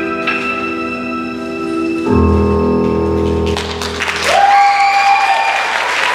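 Recorded dance music with sustained ringing notes that ends on a deep low chord about two seconds in. Audience applause and cheering break out about three and a half seconds in.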